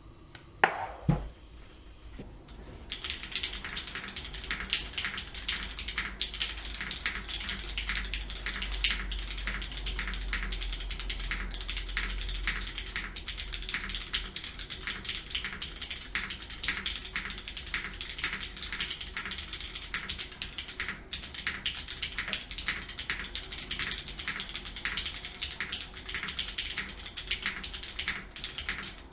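A couple of sharp knocks about a second in, then steady, fast typing on a custom mechanical keyboard with lubed Cherry MX Black linear switches on an aluminium plate and GMK Classic Beige keycaps. The keystrokes start about three seconds in and run as a dense stream of clacks.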